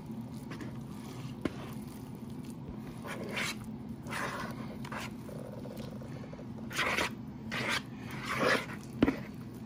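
Spatula scraping a thick broccoli, rice and cheese casserole mixture out of a mixing bowl into a glass baking dish: a run of short scrapes and squishes, with a sharp tap a second or so in and another near the end.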